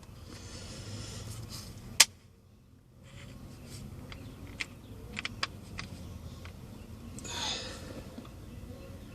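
Small metal parts clicking as they are handled during ignition lock cylinder work: one sharp, loud click about two seconds in, a few lighter clicks around the middle, and a brief rustle near the end.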